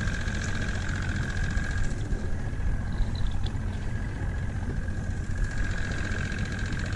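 An engine idling steadily, a low rumble with a thin steady whine over it.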